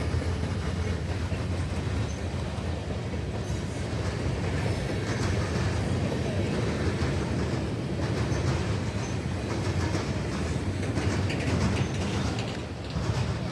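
Freight train rolling past, wheels clacking on the rails, over a steady low rumble.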